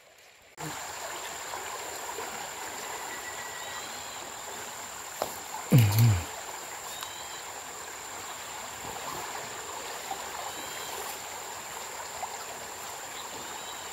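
Muddy stream flowing with a steady rush of water that starts suddenly about half a second in, with a thin high insect-like drone and faint chirps over it. About six seconds in there is one short loud low sound that drops in pitch.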